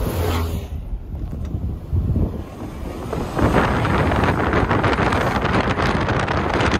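Wind rushing over the microphone through a moving car's open window, over the low rumble of the car on the road. A white van passes close by at the start, and the wind noise gets much louder a little over three seconds in.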